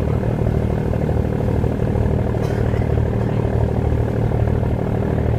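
Fishing boat's engine running steadily with a deep, even drone, under load while towing another boat on a line.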